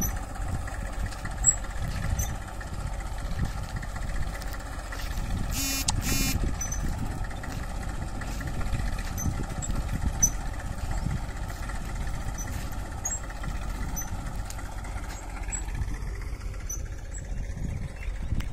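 Massey Ferguson 1035 tractor's three-cylinder diesel engine running steadily under load as it pulls a tine cultivator through a maize field. Two brief high-pitched sounds come about six seconds in.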